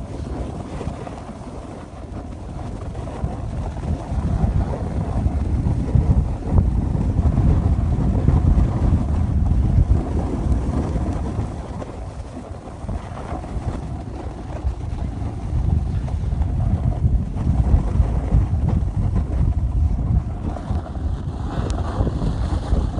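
Wind buffeting the microphone of a camera carried at speed down a ski slope: a steady low rumbling rush that swells and fades.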